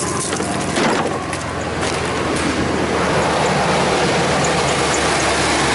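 Ford F-250 pickup's engine idling steadily after being started, with a single knock about a second in.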